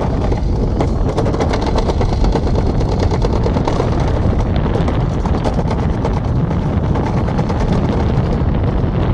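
Summer bobsled running fast down a stainless steel trough track: a loud, steady rumble with rapid rattling from the sled on the metal.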